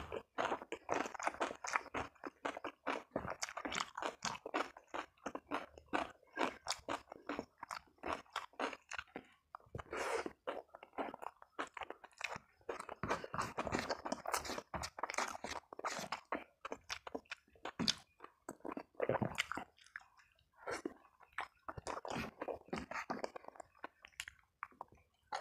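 Close-miked chewing and crunching as a person eats a hand-eaten meal of rice, fried fish and raw vegetables, with wet mouth sounds. The chewing comes in an irregular run of crackles with brief pauses between mouthfuls.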